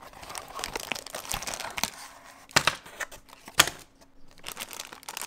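Drone accessory box packaging being opened and rummaged through by hand: irregular crinkling and rustling, with two sharp snaps about two and a half and three and a half seconds in.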